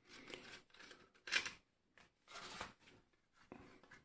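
Faint handling noise: a few short rustles and light clicks, the loudest about a second and a half in, as rubber Wi-Fi antennas are handled at the connectors of a small router.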